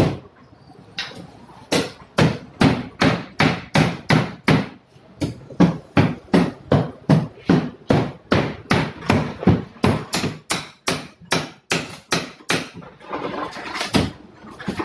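A fast, steady run of sharp knocks, about three a second, after a short lull at the start, with a noisier stretch and one last knock near the end.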